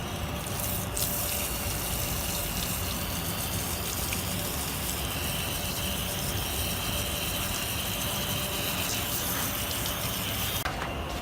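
Water running steadily, as for a puppy's bath, starting just after the beginning and cutting off near the end.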